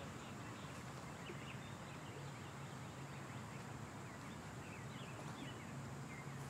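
Small birds chirping faintly here and there, over a steady low hum and an even hiss.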